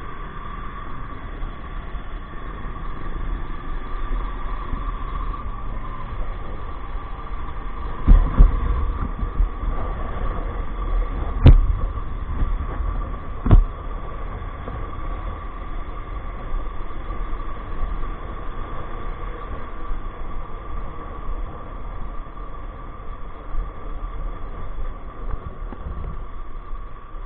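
Steady road and engine noise heard from a camera on a moving vehicle: a constant rumble with a steady high whine over it, and three sharp knocks a few seconds apart around the middle.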